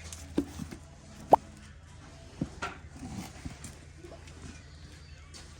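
A few scattered knocks and clicks, the sharpest about a second and a half in, over a low steady hum that fades after the first second or so.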